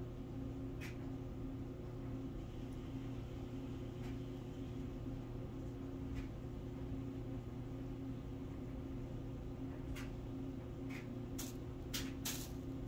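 Steady low hum of a quiet room, with a few light clicks and taps that bunch up near the end as two cats scuffle and shift on a hardwood floor.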